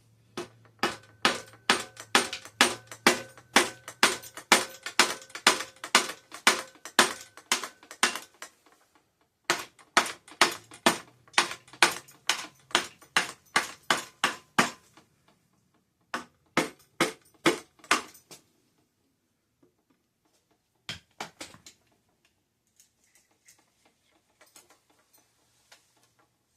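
Rubber mallet hammering on a stuck bicycle crank arm to knock it loose: sharp blows at about three a second in three long runs with short pauses, each with a slight metallic ring, then a few weaker blows.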